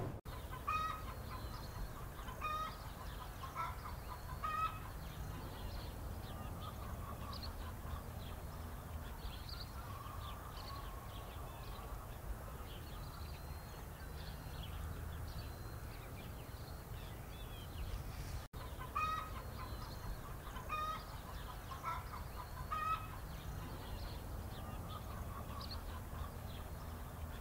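Chickens clucking in short runs of calls, near the start and again about twenty seconds in. Small birds chirp throughout, over a steady low rumble.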